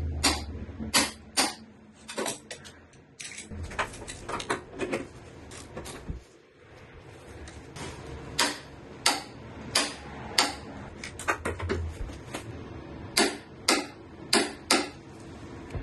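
Torque wrench ratcheting in short runs of sharp clicks while tightening 17 mm engine mount bolts to 52 lb-ft.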